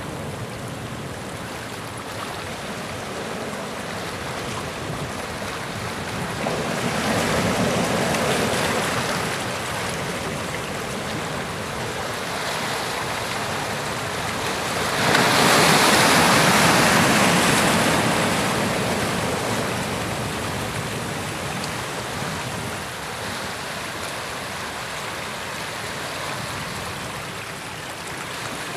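Sea surf washing against shoreline rocks. A wave breaks about seven seconds in, and a louder one comes suddenly about fifteen seconds in, each swelling and then slowly ebbing away.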